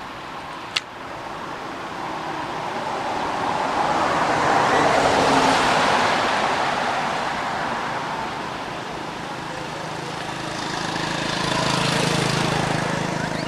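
Road traffic: two vehicles pass one after the other, their tyre and engine noise swelling and fading. The first is loudest about five seconds in; the second, about twelve seconds in, carries a low engine hum. A sharp click comes just under a second in.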